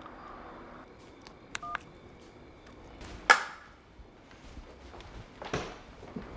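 Short electronic key beeps from a mobile phone about a second and a half in, then a sharp, loud knock about three seconds in and a softer one near the end.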